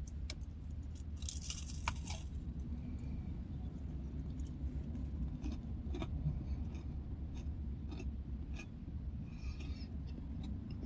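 Faint chewing with small crunches and clicks, over a steady low hum.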